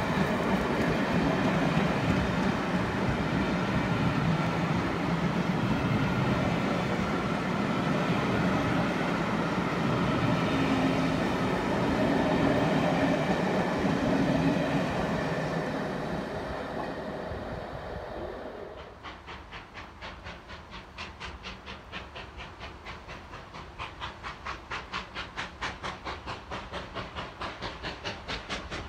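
Passenger carriages of a steam-hauled train rolling past, with wheel rumble and clatter over the rail joints, fading away over the first eighteen seconds or so. After that comes the exhaust of a steam locomotive working in the distance, a steady beat of about two chuffs a second, slowly growing louder as it approaches.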